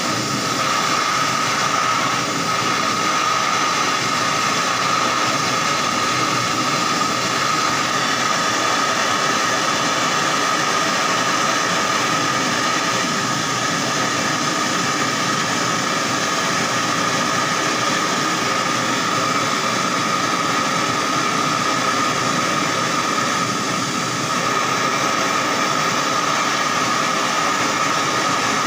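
Handheld gas-canister blowtorch burning steadily: a continuous hissing flame with one steady whistle-like tone in it.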